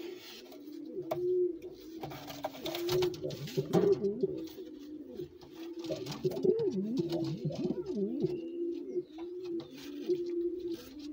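Male pouter pigeon cooing over and over with its crop puffed: low, arching coos that repeat and overlap. A few short knocks and rustles come in the first half.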